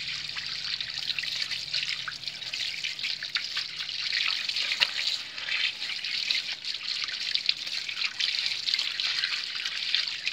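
Running water splashing steadily over hands rubbing pieces of fish in a plastic bag as they are rinsed, spattering onto a concrete floor, with many small splashes and drips.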